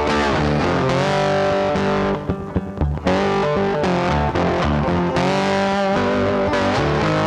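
Background music with electric guitar, loud and continuous, with a brief drop in loudness about two seconds in.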